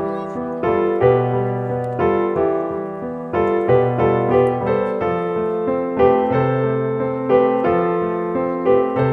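Background piano music: notes and chords struck at an even, unhurried pace over held bass notes.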